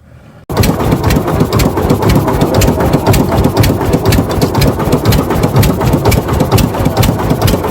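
A fishing boat's engine running loud and close, with rapid clicking through it. It begins abruptly about half a second in.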